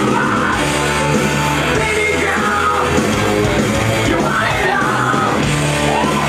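Loud heavy metal music with guitar and a singing voice.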